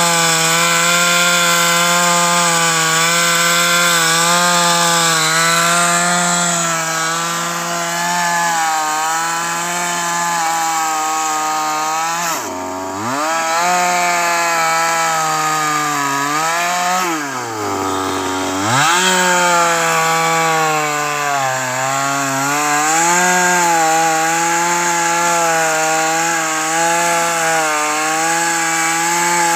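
Two-stroke gasoline chainsaw running at high revs while cutting through a thick tree trunk, its pitch wavering as the chain bites into the wood. Twice, around the middle, the engine note drops steeply for about a second and then climbs back to full revs.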